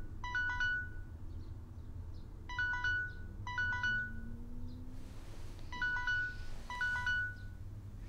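An electronic alert melody of short chiming notes, sounding in pairs about a second apart, with each pair repeating about every three seconds over a low steady hum.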